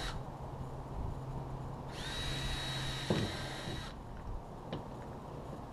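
Power drill spinning up to a steady whine about two seconds in, running for about two seconds and stopping, with a few short clicks around it.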